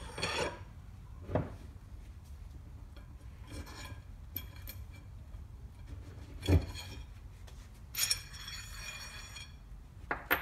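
Steel drill-press spindle and bearing parts handled on a wooden workbench: scattered light metallic clinks and two dull knocks. About eight seconds in there is a longer, ringing metallic clink.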